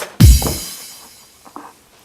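One loud electronic drum hit: a deep boom falling in pitch together with a hissing crash that fades out over about a second.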